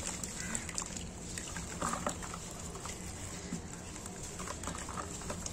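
Dry cement clumps crumbled in gloved hands, with crumbs and dust pattering into a basin of water as a run of small crackles, busiest about two seconds in.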